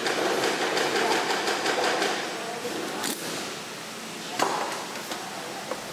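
Workshop clatter of motorcycle parts being handled: a dense run of clicks and knocks for the first three seconds, then a single sharp knock about four and a half seconds in.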